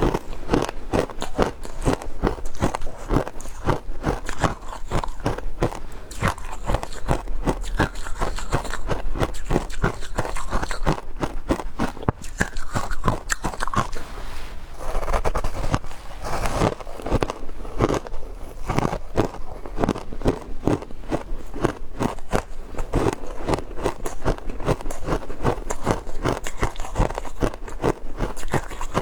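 A person biting and chewing frozen matcha ice: a rapid, continuous run of sharp crunches.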